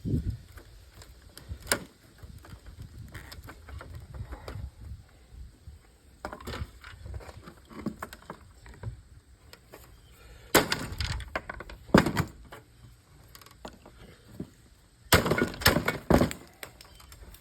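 Plastic and metal parts of an old television set being pried and broken apart: scattered clicks and cracking, with two loud clusters of hammer blows on the set, one about two-thirds of the way through and one near the end.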